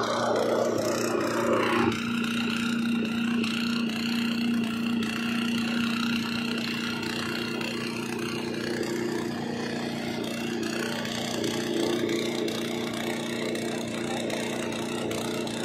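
Small petrol engine of a portable track-machine power pack running steadily at constant speed, powering a rail tool clamped on the rail. A steadier engine sound takes over abruptly about two seconds in.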